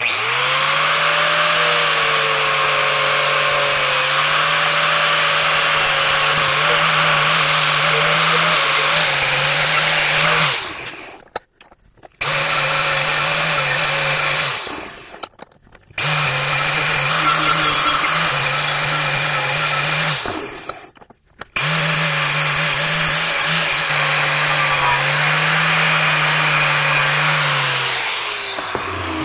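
Angle grinder with a wire brush running at full speed against steel, scrubbing forge scale off a forged knife blade. The sound breaks off abruptly three times, and near the end the motor winds down.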